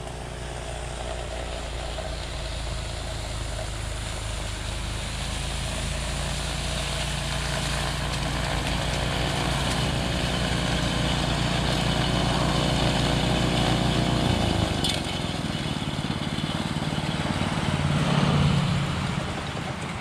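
Honda HSS928 two-stage snowblower's single-cylinder engine running steadily while it clears and throws heavy wet slush, growing louder as it approaches. About three-quarters of the way through, the engine note dips and changes.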